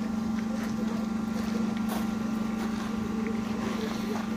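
A steady low mechanical hum, with a faint sharp click about two seconds in.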